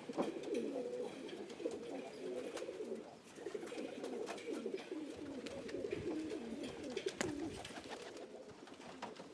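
Domestic pigeons cooing, several birds overlapping without a break, with scattered light clicks among them.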